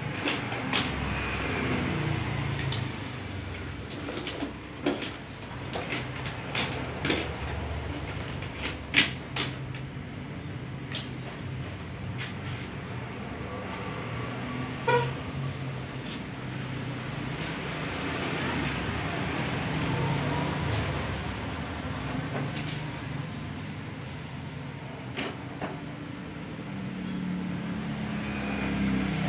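Workshop background: a steady low rumble with scattered sharp clicks and taps from hand work on acrylic sign panels, and a short squeak about halfway through.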